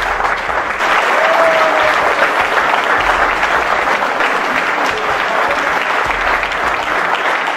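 Audience applauding steadily, a dense clapping that continues without a break.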